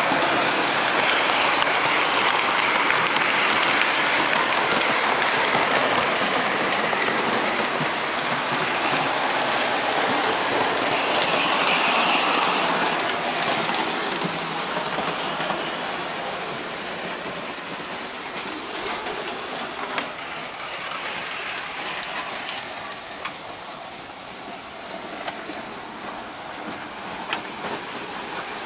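Model trains running on three-rail O-gauge track: a steady rattle of metal wheels and motors. It is loudest at first, fades after about thirteen seconds, and a few sharp clicks come near the end.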